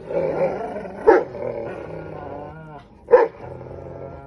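Dogs, an English mastiff and a Belgian malinois, growling in play while tugging on a rope toy, with two short sharp barks, about a second in and about three seconds in. It is play-growling, not a real fight.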